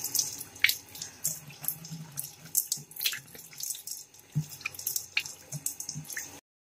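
Water splashing in a bathroom sink as a face is rinsed with cupped hands: irregular splashes and drips over faint running water, cutting off suddenly near the end.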